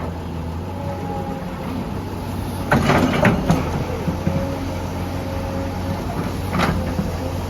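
Heavy diesel construction machinery running steadily, with a faint whine over the engine note, a few sharp clanks about three seconds in and another near the end.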